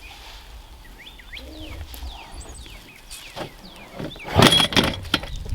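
Birds giving short, downward-sliding chirps over a faint outdoor rumble, then a loud burst of sharp clattering knocks about four seconds in.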